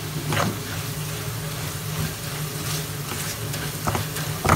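Spatula stirring spice powder into lemon pieces in an oiled pan, with a few sharp scrapes against the pan about half a second in, near four seconds and at the end, over a steady low hum.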